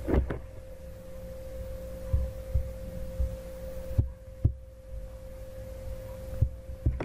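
Steady electrical hum on the recording, a thin constant tone that cuts off shortly before the end, with a few soft low thumps and clicks, the sharpest about four and a half seconds in.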